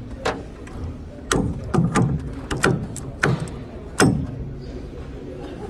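A run of about nine sharp, irregular knocks and clicks, the loudest about four seconds in.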